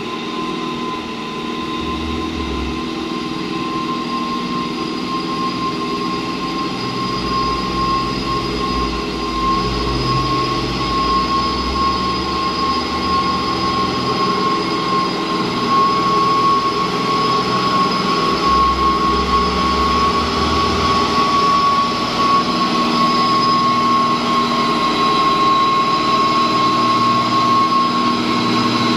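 Mitsubishi Fuso dump truck's diesel engine pulling up a muddy slope, with a steady high whine over the engine note. It grows steadily louder as the truck comes closer.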